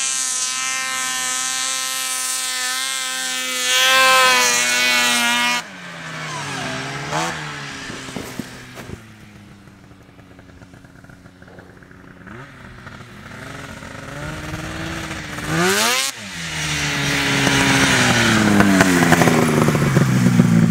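Snowmobile engines. A nearby sled runs steadily and revs up, then cuts off abruptly about five seconds in. A quieter, distant sled then revs up and down several times as it climbs a slope, and near the end a nearby sled's engine rises and runs loudly.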